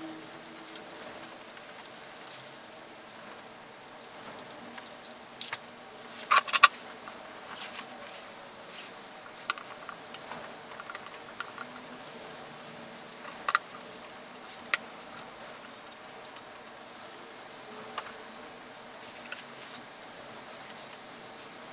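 Hex key turning M4 cap-head screws that fix a plastic junction box to a steel frame: light fast ticking at first, then scattered metal clicks and scrapes of the key in the screw heads, loudest in a short clatter about six seconds in.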